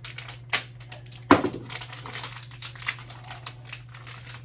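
Packaging of a replacement 12-volt-to-USB transformer being opened by hand: a sharp snap about a second in, then crinkling and rustling with scattered clicks.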